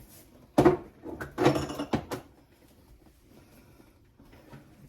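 Condiment jars and bottles knocked and set down on refrigerator shelves: one sharp clunk just over half a second in, then a short run of clattering knocks about a second later, then faint handling.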